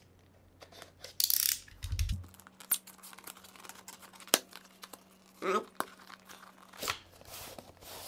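Cardboard retail box being slit open with a utility knife and its end flap pulled open: tearing and crinkling of cardboard and paper, with scattered clicks and scrapes.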